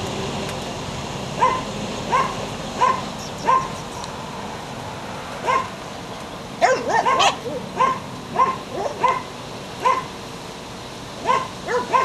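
Belgian Shepherd puppy whining: a string of short, high cries, each rising in pitch, coming every half second or so, with a pause about four seconds in and a quick flurry of cries about seven seconds in.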